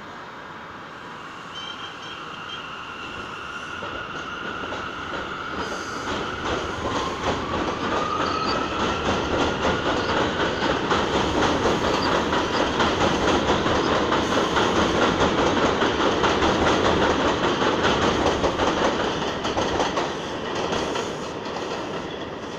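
Subway train pulling out on elevated track, growing louder as it gathers speed, with rapid clickety-clack of wheels over rail joints and a whine rising in pitch. It peaks in the middle and fades near the end as the last cars leave.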